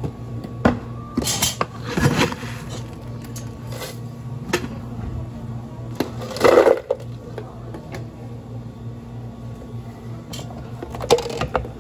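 Clatter of drink-making at a café counter: scoops and utensils knocking, and ice tipped into a plastic blender pitcher, loudest about six and a half seconds in. A steady low hum runs underneath.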